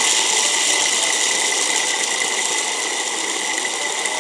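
MegaWise 800-watt stick blender running with its chopper attachment, the motor driving the blades through a bowl of peanuts: a loud, steady motor sound with a constant high tone.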